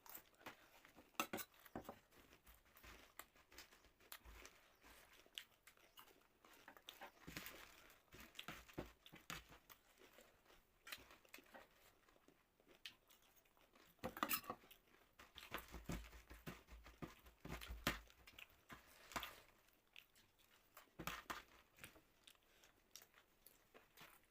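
Faint close-up eating sounds: chewing and crunching, with scattered clicks and taps of utensils against a dish. These come in irregular clusters, a little louder about two-thirds of the way through.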